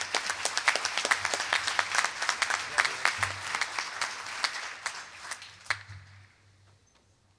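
Audience applauding, the clapping dying away about six seconds in.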